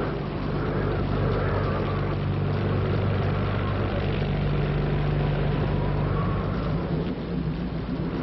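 A motorboat engine running with a steady low drone beneath the noise of a storm: wind, rain and spray, with a wavering howl of wind.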